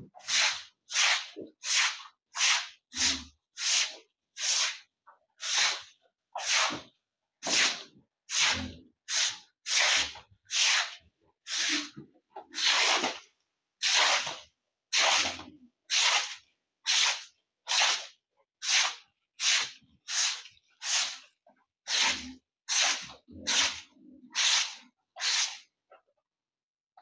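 Broom sweeping water across a wet concrete pig-pen floor: a steady run of short swishing strokes, a little more than one a second, stopping shortly before the end.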